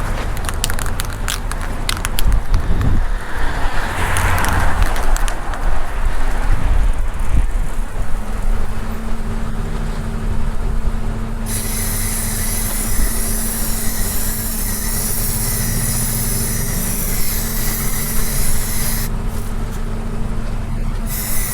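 Power sander running: a steady motor hum with a high hiss that cuts in about halfway through and stops a few seconds before the end, after some knocking at the start.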